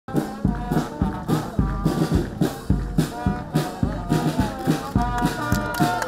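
Music with brass and a steady drum beat, about two beats a second.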